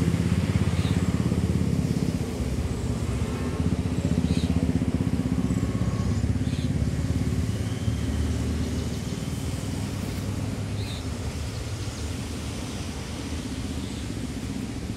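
An engine idling steadily, a low pulsing hum that eases a little in the second half.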